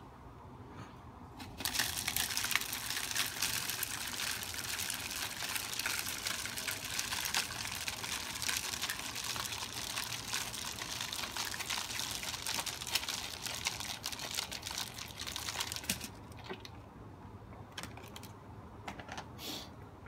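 Bird seed pouring through a plastic funnel into a plastic 2-liter bottle: a dense, continuous rattle of small grains that starts about two seconds in and stops about sixteen seconds in.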